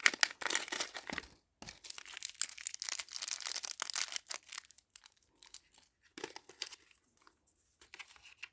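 Packaging being torn open and crinkled by hand, in two long crackly bursts over the first four and a half seconds, then a few lighter rustles and clicks.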